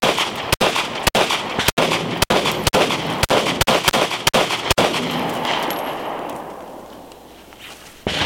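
Semi-automatic handgun firing 9mm 124-grain Hydra-Shok hollow points in a rapid string of about ten shots, roughly two a second, into a car body. Each shot is sharp and echoes, and the echo dies away after the last shot about five seconds in. Another loud sharp sound comes right at the end.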